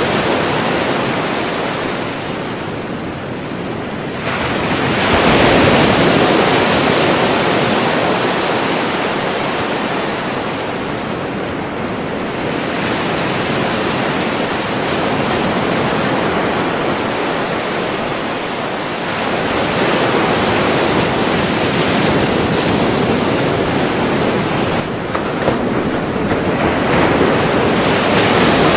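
Ocean waves breaking on a shore: a continuous rush of surf that swells as each wave breaks, about four times, with quieter stretches between.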